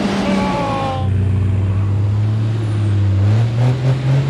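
Toyota LandCruiser 80 Series engine working under load as the 4WD crawls out of a deep rut. The engine note drops in the first second, holds a low steady pull, then rises toward the end.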